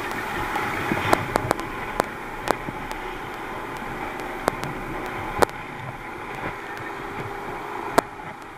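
Thundercat inflatable boat's outboard engine running at low speed under steady water and spray noise, with about eight sharp knocks as waves and spray hit the boat.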